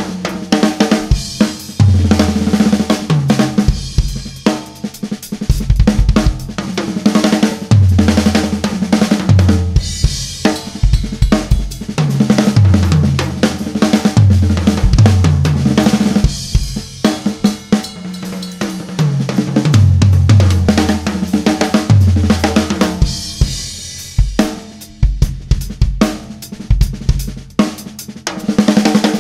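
Acoustic drum kit played in a groove with fills: kick, snare, hi-hat and cymbals, with repeated tom runs that step down in pitch.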